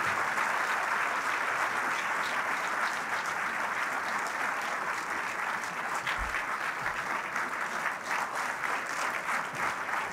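A large audience applauding steadily: dense, sustained clapping from many hands.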